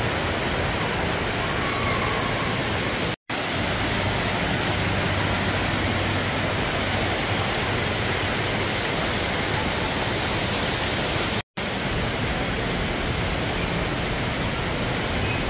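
Steady rushing of an indoor waterfall spilling over rocks, broken twice by a split-second silence.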